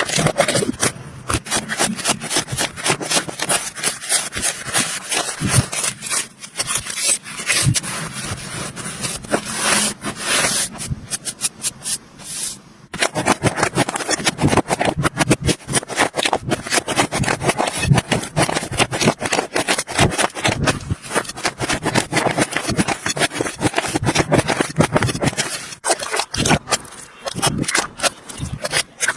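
Slime being worked by hand, a dense run of sticky clicks and crackles, with a short break about thirteen seconds in.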